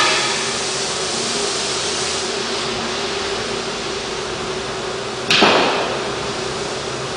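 Oxy-fuel cutting torch flame hissing steadily as it preheats the steel plate, with a steady low hum beneath. About five seconds in there is a sudden louder rush of gas that dies away over a second.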